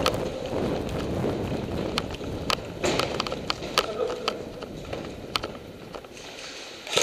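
Footsteps and gear rustle of an airsoft player moving quickly over a concrete floor, with scattered sharp clicks throughout.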